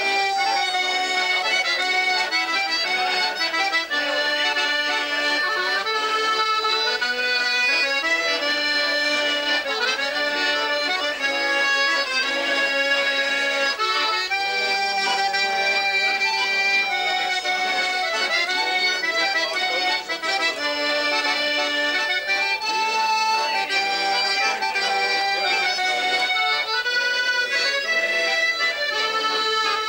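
Two button accordions playing an Irish traditional tune together, a quick steady stream of notes.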